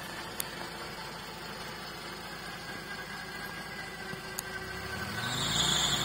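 Vehicle winch on a UAZ off-roader running steadily under load, its cable dragging a buried DT-75 crawler tractor track up out of the soil. The sound swells louder about five seconds in.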